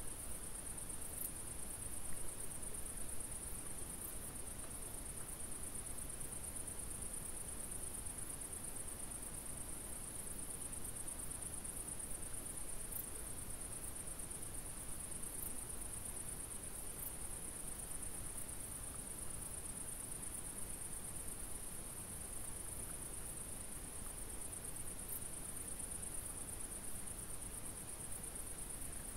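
Crickets chirring in a steady high-pitched chorus that does not let up, over a faint even hiss.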